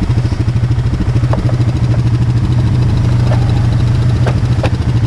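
ATV engine idling steadily with an even low pulse. A few sharp knocks come over it, the loudest near the end.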